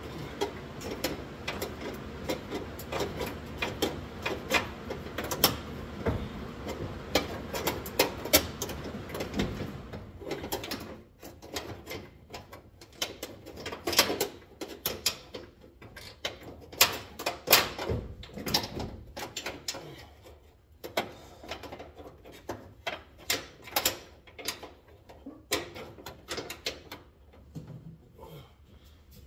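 Irregular metallic clicks and clanks of a wrench working a car door hinge bolt loose. The clicks are dense for the first third, then come as separate sharp clicks.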